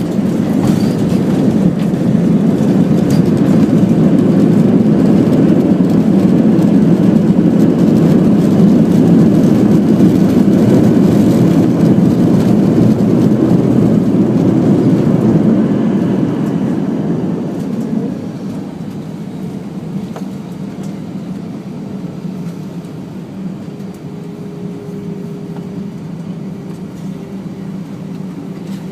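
Cabin noise of an Airbus A319 airliner slowing on its landing rollout: a loud roar of engines and rushing air that dies down about two-thirds of the way through as the jet slows toward taxi speed. It leaves a quieter steady hum, with a faint steady whine near the end.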